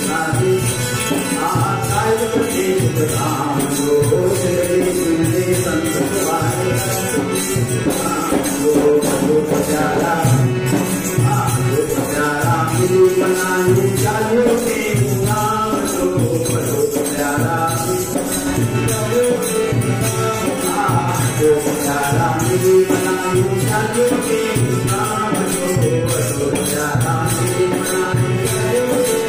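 A man sings a Sindhi devotional bhajan into a microphone, accompanied by his own harmonium, over a steady rhythmic percussion beat.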